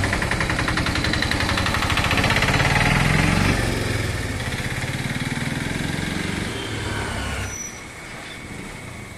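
An engine running with a rough, pulsing hum, its pitch rising briefly about three seconds in. It cuts off suddenly near the end, leaving quieter background.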